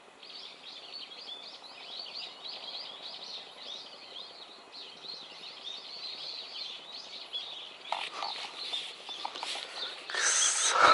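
Wild birds chattering in a continuous run of short, quick high chirps. Near the end come close rustling and clicks, then a short louder burst.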